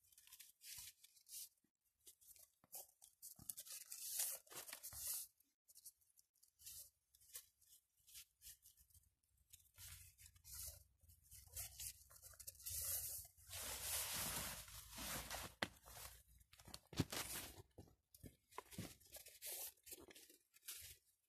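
Long, grass-like leaves of a Siberian iris rustling and swishing as they are gathered and braided by hand, in faint, irregular scratchy bursts, with a louder stretch of rustling about two-thirds of the way through.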